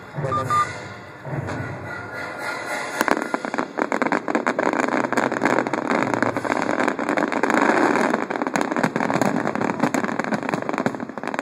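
Music fading in the first seconds, then a dense barrage of firework bangs and crackling from about three seconds in, many reports a second without a break.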